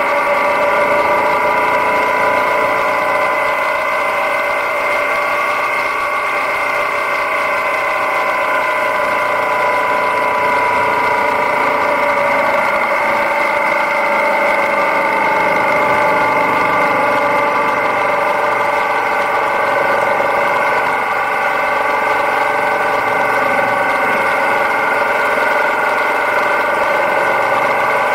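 Yamaha Ténéré 700's parallel-twin engine running steadily at road speed, its pitch drifting slightly up and down through the bends.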